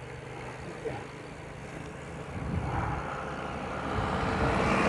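A motor vehicle on the road, approaching and growing louder from about halfway through over a steady low rumble of road noise.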